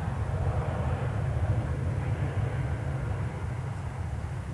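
Jet airliner engines heard at an airport: a steady deep rumble with a broad roar above it, easing off slightly as the aircraft moves away.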